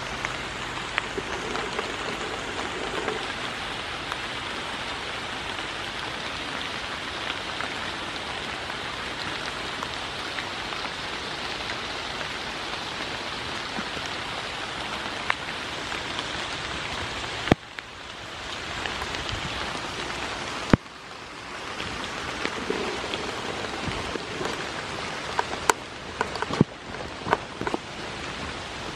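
Steady rain falling, an even hiss with scattered sharp raindrop taps. It drops away abruptly twice in the middle and comes back, and a run of louder taps comes near the end.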